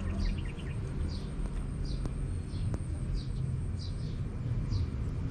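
A bird calling over and over: short high chirps, each dropping in pitch, about one or two a second, over a steady low rumble.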